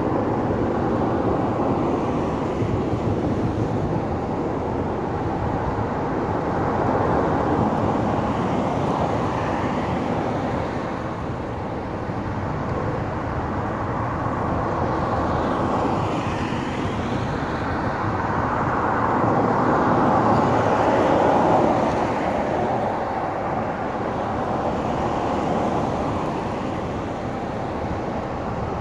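Car traffic on a wet road: a steady rushing of tyres and engines that swells as vehicles pass, loudest about twenty seconds in.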